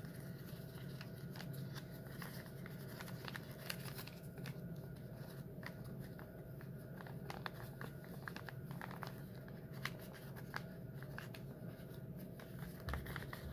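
A folded sheet of paper being bent and creased by hand: faint, scattered crinkles and crackles over a steady low room hum.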